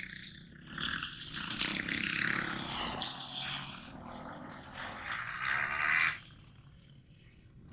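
Dirt bike engine revving hard as it rides the track, swelling twice, then dropping away suddenly about six seconds in.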